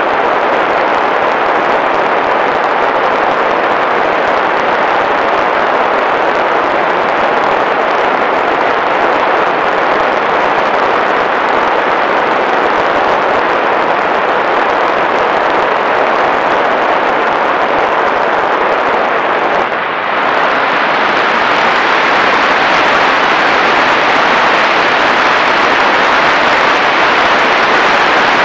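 Steady loud rush of air over a small fixed-wing UAV's onboard camera in flight. It dips briefly about twenty seconds in, then runs on a little louder.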